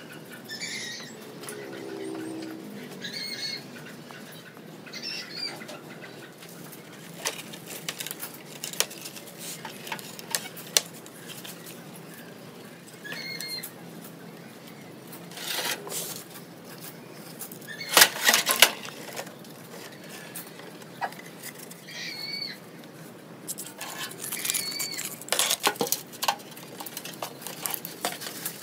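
Sheet-steel desktop computer case and its motherboard being handled and pulled apart: irregular metallic clattering, knocking and scraping, loudest a little past the middle. Short bird chirps sound now and then in the background.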